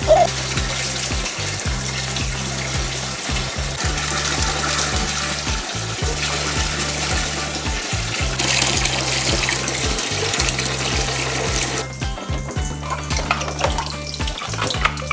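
Water hissing from a grooming tub's handheld shower head as a toy poodle is bathed, over background music with a steady low bass line. The hiss drops away about twelve seconds in.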